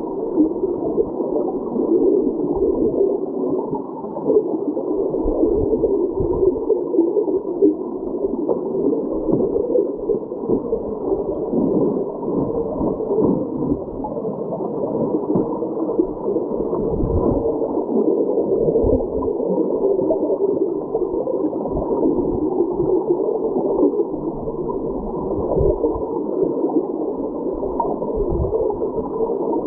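Creek current recorded underwater: a steady, muffled rushing and gurgling, with irregular low thumps.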